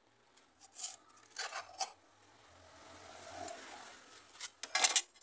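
Faint scraping and rubbing in short strokes: a few brief scrapes, a softer drawn-out rub in the middle, and a quick cluster of scrapes near the end.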